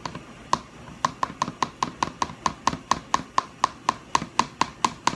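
A utensil knocking against the side of a mixing container in a quick, even rhythm of about five short, ringing clinks a second, as colouring is stirred into slime.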